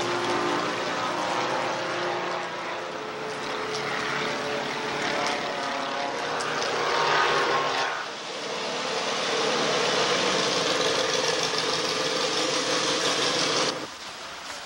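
Light propeller airplane's piston engine running, its note shifting over the first several seconds. About 8 s in the sound changes to a steadier engine drone, which cuts off abruptly near the end.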